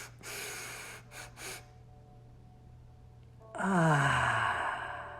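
A woman breathing audibly: a few short breaths, then about three and a half seconds in a long, loud exhaled sigh whose voice falls in pitch and fades away.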